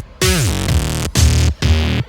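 Electronic background music with a heavy bass. Bass notes slide down in pitch, and the phrases are broken by short gaps.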